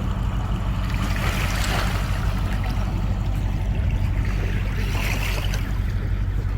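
Sea water washing against the shore, swelling and fading every second or two, over a steady low rumble.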